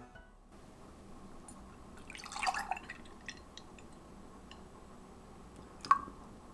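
Light clinks and taps of dishes or utensils: a short cluster of soft clicks about two seconds in, then one sharp, briefly ringing clink near the end.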